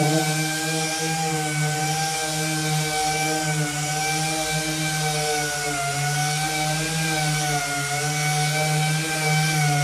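Electric power sander running steadily while sanding a part: a constant motor whine with small wavers in pitch, over an even hiss.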